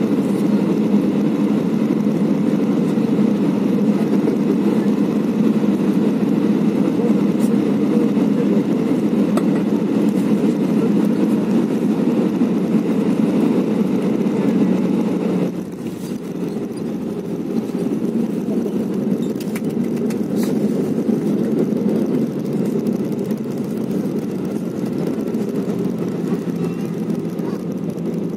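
Cabin noise of an Airbus A319 airliner landing: a loud, steady rush of engines and airflow that drops suddenly and turns duller about halfway through, then carries on lower as the jet rolls down the runway.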